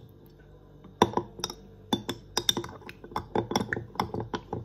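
A small spoon stirring lemon juice and honey in a jar, tapping and clinking against the sides in quick, irregular strokes from about a second in, as the honey is worked in to dissolve.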